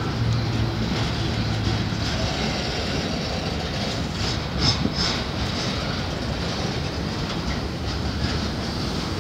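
Coal train's hopper wagons rolling past with a steady rumble of wheels on rails and a clickety-clack over the rail joints. There are a few sharper clanks a little past halfway.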